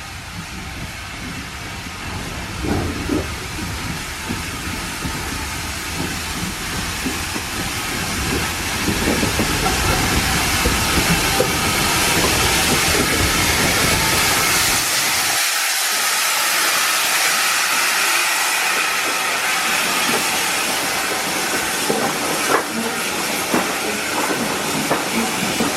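Steam locomotive pulling a train away from a station, with hissing steam, getting louder over the first ten seconds or so.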